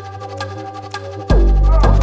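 Electronic background music: a sparse break of held tones and light ticks, then a heavy bass beat kicks in about a second and a half in.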